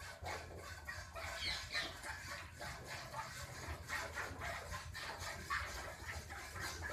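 A cow being hand-milked from both sides at once: milk squirting in quick, rhythmic streams into metal pails.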